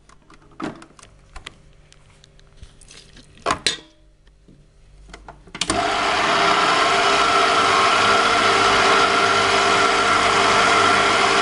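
A few light clinks and knocks, then a little over halfway a stand mixer's motor switches on and runs steadily, its dough hook kneading dough in a steel bowl.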